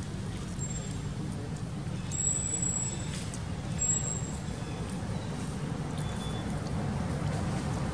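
Steady low rumble of outdoor background noise, with a few faint, brief high-pitched chirps about two and four seconds in.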